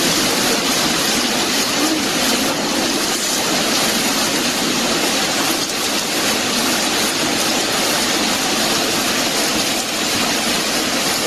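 Fast-flowing floodwater rushing down a street, a steady loud rush of water.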